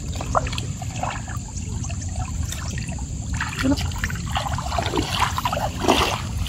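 Shallow lake water trickling and sloshing as a raw chicken is rinsed in a plastic basin dipped in the water, then splashing footsteps wading through the shallows, the loudest splashes coming near the end.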